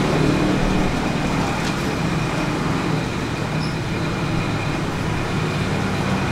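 Steady road traffic noise, with the low hum of passing vehicle engines.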